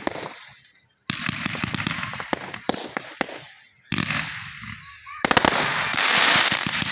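Fireworks going off: rapid crackling pops over a hiss, stopping and starting abruptly a few times, with a dense, loud crackling hiss in the last two seconds.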